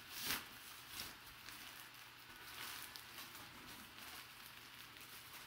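Faint rustling and crinkling of packing paper and a plastic bag as a bagged jersey is lifted out of a cardboard box, with a few soft handling noises.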